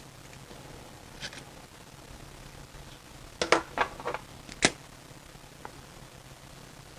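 A few short, sharp clicks and taps, bunched between about three and a half and five seconds in: small hobby tools handled on a cutting mat as a pen is set down and a pair of scissors is picked up and opened.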